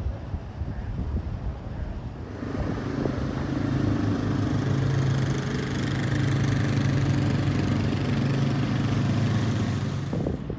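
A motor vehicle engine running with a steady low hum, coming up about two seconds in, holding steady, then cutting off abruptly near the end.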